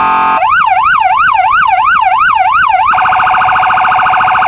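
Polish police car's electronic siren: a fast up-and-down yelp of about two and a half sweeps a second, which switches a little under three seconds in to a very rapid warble.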